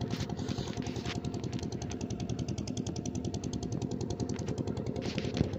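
A small engine running steadily, with a fast, even beat of many pulses a second.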